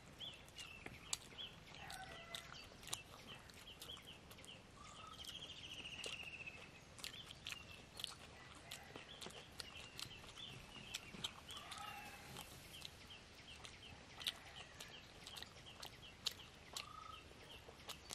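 Chickens clucking in the background, with runs of high, rapid chirps and a few short rising calls, and scattered faint clicks throughout.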